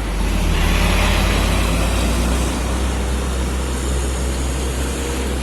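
Heavy diesel truck engine running with a steady low drone, over a haze of road and wind noise.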